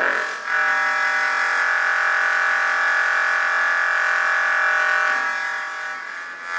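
Steady buzzing electronic drone from a small synthesizer, rich in overtones. It starts abruptly and fades about five seconds in.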